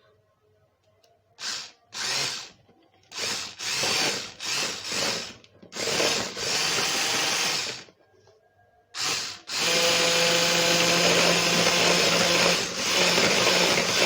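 Electric mixer beating whipping cream with cold milk. It starts in several short bursts, then runs steadily for about two seconds, and after a brief stop runs continuously through the second half.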